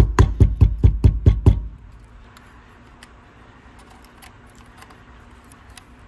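A quick run of about eight sharp metal knocks on a workbench, roughly five a second, lasting a little over a second and a half. Then only faint small clicks of metal parts being handled.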